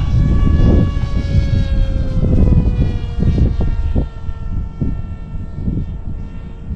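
The 2212 1400 kV brushless motor and 7x5 pusher prop of an RC flying wing whine in flight on a 4S battery, the pitch slowly falling. Gusts of wind buffet the microphone underneath.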